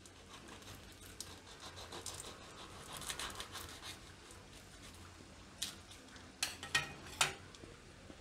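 Knife cutting through a crisp deep-fried ghughra pastry on a steel plate: faint crunching and scraping of the crust, with a few sharper clicks in the second half.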